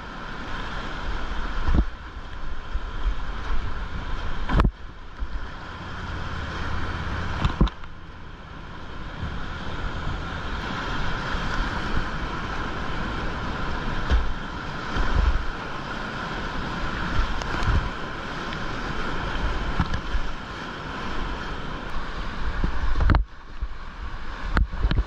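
Whitewater rapids rushing around a kayak, close on a GoPro's microphone: a steady dense rush of water with low buffeting from wind and splashes on the camera. The sound drops out briefly a few times, about four and a half seconds in, near eight seconds and near the end.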